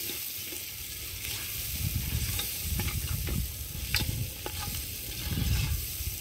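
Mutton, onions and spices sizzling as they fry in a three-legged cast-iron pot, stirred with a metal spoon that scrapes through the food and clicks against the pot a few times.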